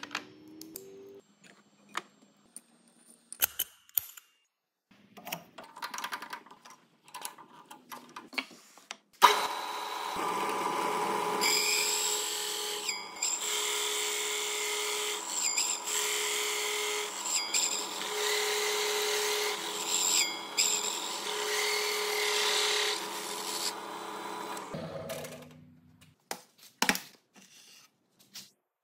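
Scattered clicks and knocks of hole-saw parts being handled and fitted onto a quick-change Snap-Lock arbor. About nine seconds in, a drill press starts suddenly, driving a large Diablo bimetal hole saw that cuts through a thick softwood board for about fifteen seconds, with a lower tone that comes and goes. The machine then stops, and a few knocks follow as the board is moved.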